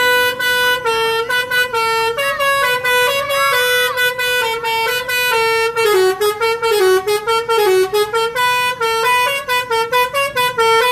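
A bus's basuri telolet horn playing a tune: a quick run of horn notes stepping up and down in pitch, broken by short gaps between phrases.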